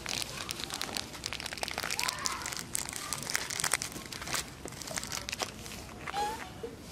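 Scattered crackling and clicking with a couple of short squeaks from macaques, one rising about two seconds in and a lower one near the end.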